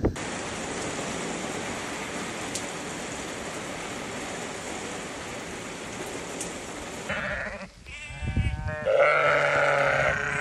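Steady hiss of heavy rain falling. About seven seconds in it gives way to ewes and lambs bleating, several calls overlapping and loudest near the end.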